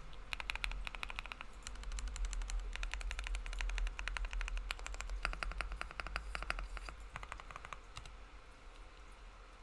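Fast typing on a Freakey60 prototype 60% mechanical keyboard with Gateron Creamy Oil linear switches, 60A O-rings and case foam fitted: a rapid, dense run of key clacks that thins out and stops about eight seconds in.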